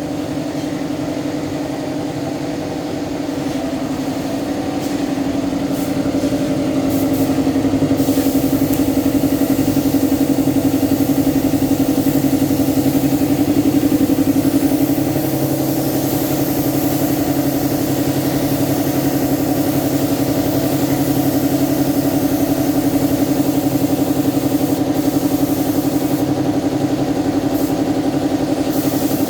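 A machine motor running steadily with a pulsing hum. A light hiss joins about eight seconds in.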